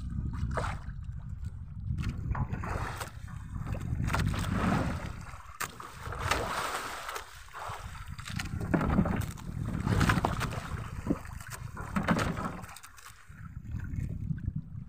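Waves sloshing and slapping against the hull of a small outrigger boat in repeated surges, over a steady low rumble of wind on the microphone.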